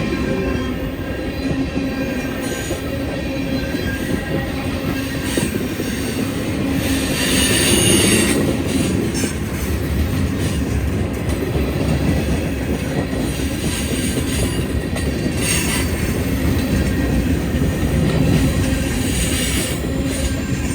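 A freight train rolling past on the rails: a steady rumble of wheels and cars, with wheel squeal rising about a third of the way in and again briefly past the middle.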